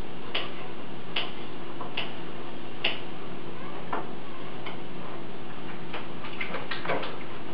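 Light clicks and taps from rotisserie chicken being pulled apart by hand and set onto a small plate, over a steady hiss. Four clicks come evenly spaced in the first three seconds, and a quick cluster follows near the end.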